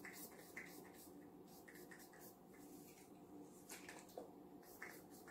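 Near silence with faint, scattered rustling of hands working through natural hair.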